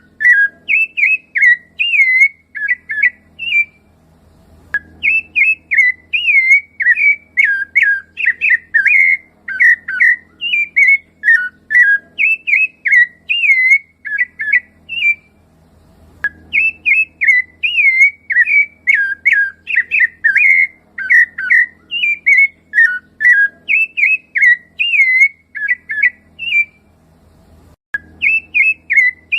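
Rufous-bellied thrush (sabiá-laranjeira) singing: long runs of quick, clear whistled notes, each bending up and down. The runs break off in brief pauses about four seconds in, about fifteen seconds in and about twenty-seven seconds in.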